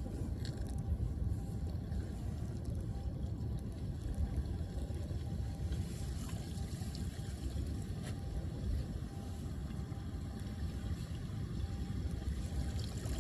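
Steady low rumble of wind on the microphone, with faint wet splashes and clicks as gloved hands pull leaves, twigs and mud out of a clogged street drain in shallow floodwater.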